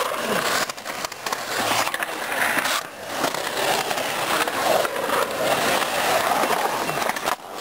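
Skateboard wheels rolling and carving on the concrete of a skatepark bowl: a continuous rolling noise that dips briefly a few times.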